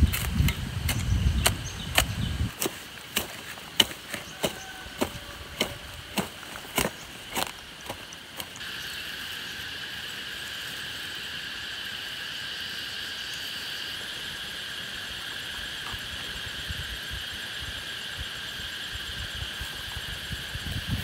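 A low rumble with sharp knocks for the first two seconds or so, then sharp knocks about twice a second until about eight seconds in, when they stop and a steady, high insect drone takes over.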